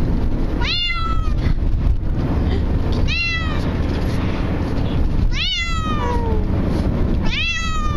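Bengal cat meowing in distress from a pet carrier: four cries about two seconds apart, each falling in pitch, over the steady low rumble of the car.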